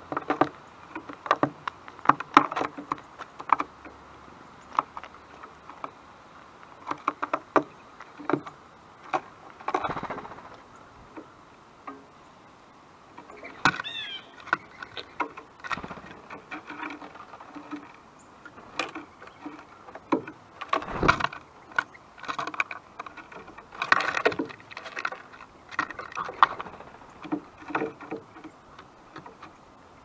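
Irregular taps and clicks from birds at a feeder, with a quick run of high bird chirps about fourteen seconds in.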